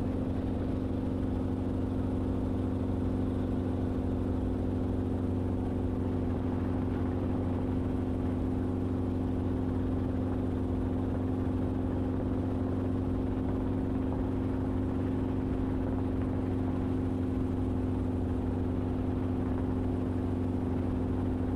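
Enstrom helicopter in cruise flight, its engine and rotors making a steady drone of several constant hum tones that never change in pitch or level.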